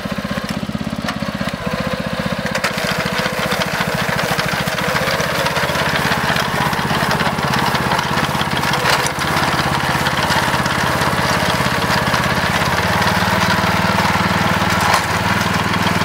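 Small engine running steadily, its speed stepping up and down a few times as it works.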